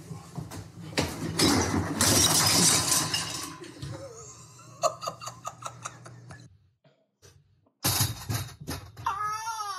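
Bottles and jars falling out of a refrigerator onto a tiled floor: a loud crash of breaking glass lasting a couple of seconds, then a run of scattered clinks.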